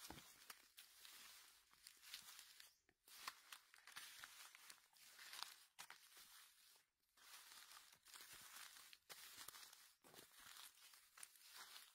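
Faint crackling and rustling of dry leaf litter, in short bouts with small snaps, as a gloved hand works through the leaves picking chanterelle-type mushrooms.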